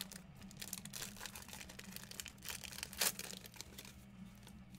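The wrapper of a football trading card pack being torn open and crinkled by hand: a run of short crackles, with the loudest rip about three seconds in.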